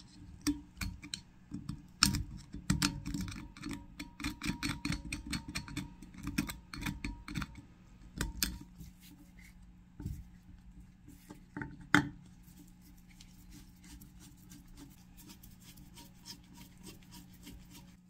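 A metal pick scraping and picking rust and dirt out of the screw holes in the grinding burr of an Enterprise cast iron hand grinder. It makes rapid runs of short scratching strokes, with one sharp, louder tick about twelve seconds in and lighter ticking after it.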